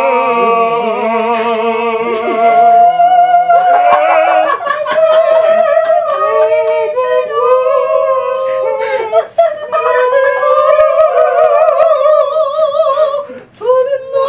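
Several young men singing loudly together in long, held notes with a strongly wavering pitch. The singing breaks off briefly near the end.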